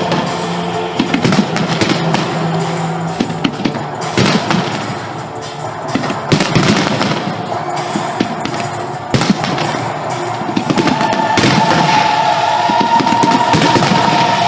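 Fireworks display: repeated bangs and crackling of bursting shells over loud music played with the show. The music grows stronger near the end.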